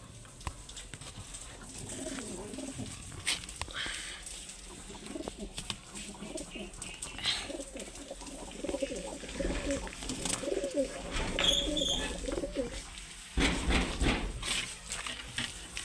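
Domestic pigeons cooing, low repeated coos with a longer run of cooing in the middle, among scattered light clicks. A louder burst of noise comes about two thirds of the way through.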